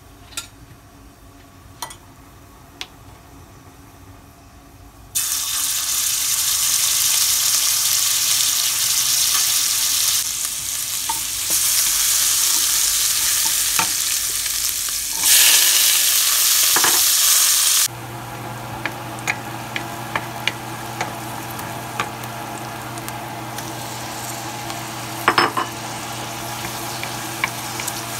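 Wooden spoon tapping a steel frying pan, then a loud sizzle of spices frying in hot oil beginning about five seconds in. From about two-thirds of the way through, a quieter sizzle of chopped onions and tomatoes being stirred, with the spoon clicking and scraping on the pan and a steady low hum.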